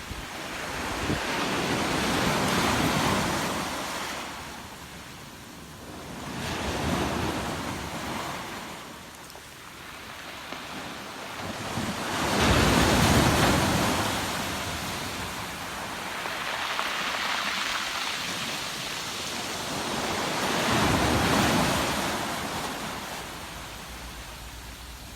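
Ocean waves breaking and washing up the shore, five surges that swell and fade about every four to five seconds, the loudest about halfway through.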